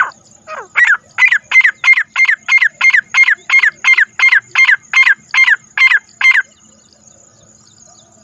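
Grey francolin calling: a fast run of about eighteen loud notes, each sliding down in pitch, about three a second, stopping about six and a half seconds in.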